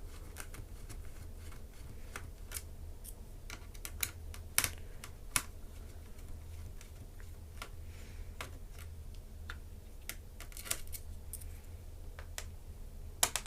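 Scattered light clicks and taps of a screwdriver and small screws on a laptop's plastic case as screws are taken out, with a few sharper clicks, over a faint steady low hum.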